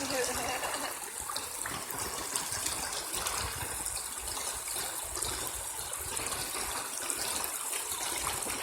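Water of a small stream flowing and trickling, a steady rushing sound.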